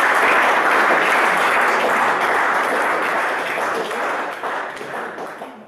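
Audience applauding, fading out over the last two seconds.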